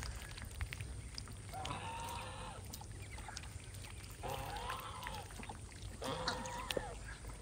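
Ducks calling faintly three times, each call drawn out and rising then falling in pitch, with light clicks in between.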